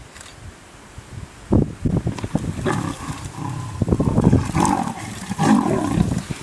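Leopard and lion snarling and growling in a fight, breaking out suddenly about a second and a half in and getting louder toward the end.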